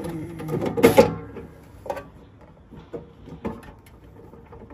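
Metal aerosol can being pushed and fitted into the holder inside a flame machine's cabinet: rattling and scraping in the first second with a sharp knock about a second in, then a few faint clicks.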